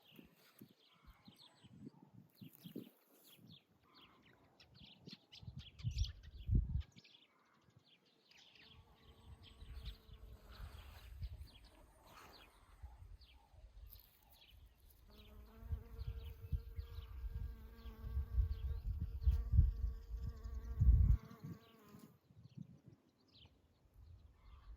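A flying insect buzzing close by for several seconds in the second half, one steady pitched hum, with small birds chirping throughout. Loud low rumbles come and go underneath, strongest just before the buzz stops.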